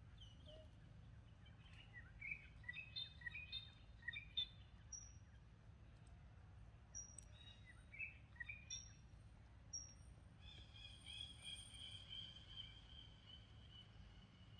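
Faint wild birds chirping: clusters of short, high chirps, with a steady high-pitched drone coming in about ten seconds in, over a low background rumble.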